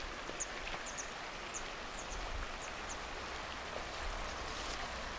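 Steady rushing noise of running water, with short high bird chirps scattered through the first four seconds.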